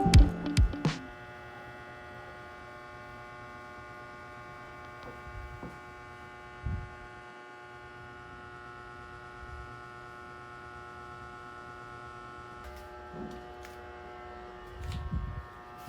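Steady electrical hum made of several fixed tones, with a few faint soft knocks now and then; the tail of background music ends in the first second.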